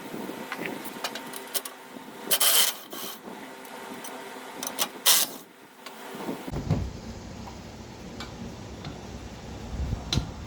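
Hand tools working on metal: scattered clinks and scrapes, with a louder scraping burst about two seconds in and a sharp one around five seconds in.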